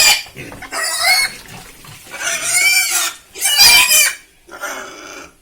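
Pig squealing loudly, five high, wavering squeals in quick succession.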